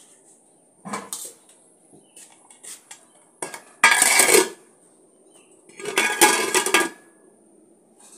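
Metal lid clattering against a metal cooking pot as it is put on: a light knock about a second in, then two loud, roughly second-long bouts of clanking about four and six seconds in.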